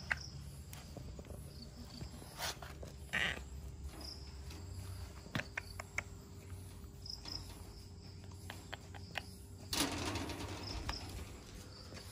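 Quiet outdoor background with faint high chirps and scattered light clicks, and a brief rustle about ten seconds in.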